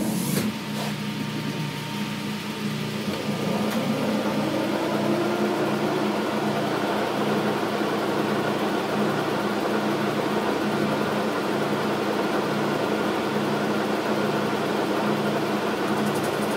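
Logan metal lathe starting up and running steadily, taking a turning cut on the outside diameter of a part. A low hum from the drive, with cutting noise building over the first few seconds.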